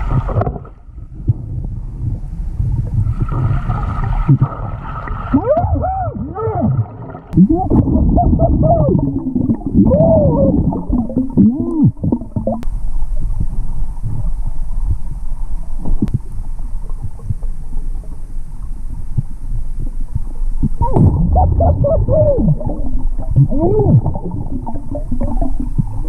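Underwater: a diver's muffled voice through his breathing regulator, wordless calls that slide up and down in pitch in two spells, over a steady low rumble of water and exhaled bubbles.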